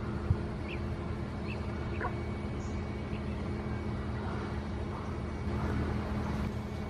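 Lesser whistling ducks giving brief, high, whistled calls, a few times and well spaced, over a steady low hum.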